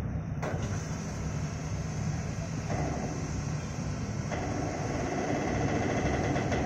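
Steady low rumble of a ship's diesel engine running, with a brighter hiss joining suddenly about half a second in.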